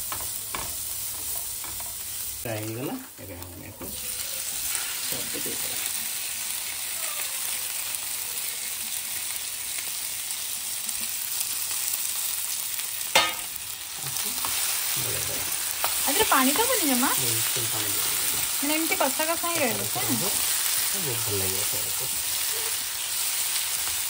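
Onions and spiced vegetable pieces sizzling in hot oil in a non-stick frying pan while a spatula stirs and scrapes them, a steady frying hiss throughout, with a sharp knock about halfway through.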